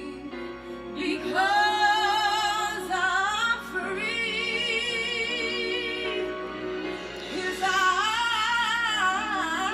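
Music: a woman singing long held notes with vibrato over a steady instrumental accompaniment.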